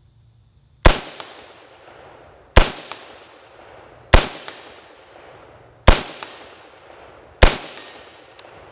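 Five unsuppressed shots from a BCM AR-15 rifle fitted with a muzzle brake, fired slowly about one and a half seconds apart to check the red-dot zero. Each shot ends in a fading echo, and a short faint tick follows each one.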